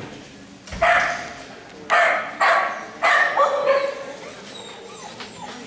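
A dog barks about five times, loud and short, within the first four seconds, then quieter sounds follow.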